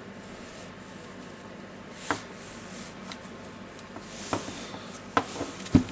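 A few separate light clicks and knocks as the parts of a disassembled cordless impact wrench are handled, the loudest one near the end.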